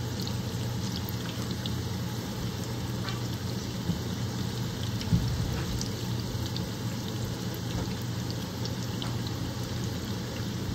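Batter-coated onion fritters deep-frying in hot oil in a cast-iron skillet: a steady sizzle with scattered small pops and crackles. Two brief knocks sound around the middle.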